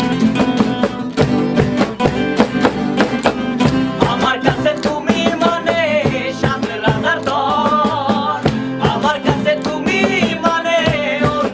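Background music with a quick, steady beat. A wavering melody comes in about four seconds in.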